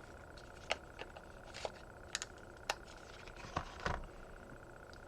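Light clicks and taps of a bone-handled balisong knife being handled and turned over, about seven sharp clicks spread irregularly, the loudest a pair close together near four seconds in.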